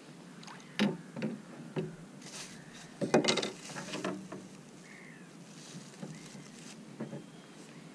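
Scattered knocks and rattles of fishing gear being handled in a kayak, loudest in a quick cluster about three seconds in. Faint bird calls in the background.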